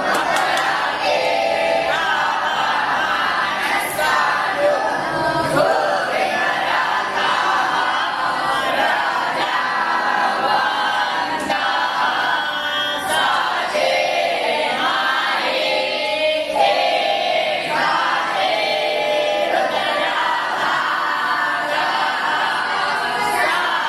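A group of young Brahmin students chanting together, many voices in a continuous, sung chant.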